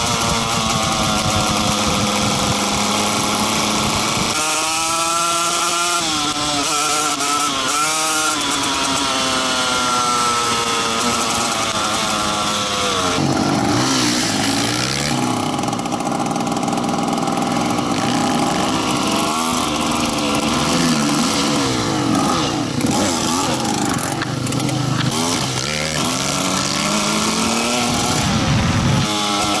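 Small motorcycle engines running under way on the move, revving up and eased off again and again so the pitch rises and falls, over a steady rushing hiss. In the second half two engine notes at different pitches weave around each other as the other bike rides close alongside.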